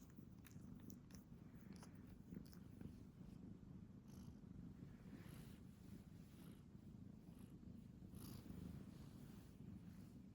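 Domestic cat purring: a faint, steady low rumble.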